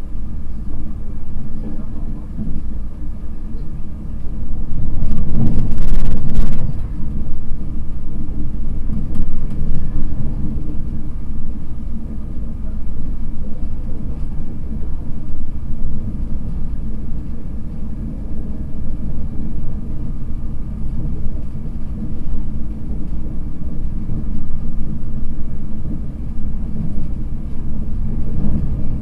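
Steady low rumble of wheels on track heard inside a coach of an InterCity 225 train running at speed. About five seconds in, a louder rushing surge lasts around two seconds and stops abruptly.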